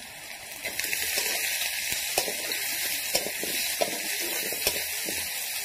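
Whole garlic bulbs and sliced onion sizzling in hot oil in a kadai; the frying hiss swells about a second in. A spatula scrapes and taps the pan a few times.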